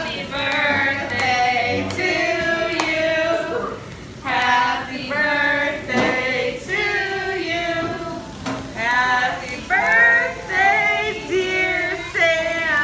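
A small group singing together, women's and children's voices, in held phrases with short breaths between them.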